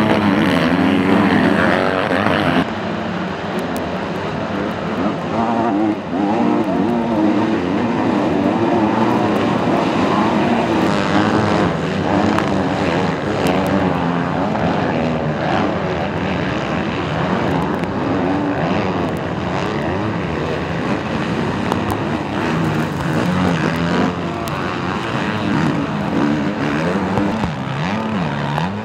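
Several motocross bikes racing on a dirt track, their engines overlapping and rising and falling in pitch as the riders rev and shift.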